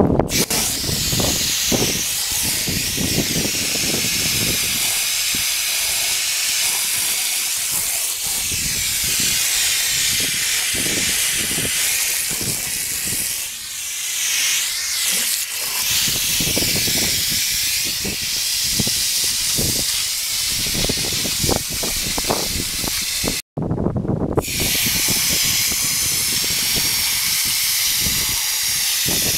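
Hose-fed coil spray gun spraying a steady, hissing jet onto a heat pump's outdoor condenser coil, with splashing underneath as the spray hits the fins. The sound cuts out for an instant about two-thirds of the way through, then resumes.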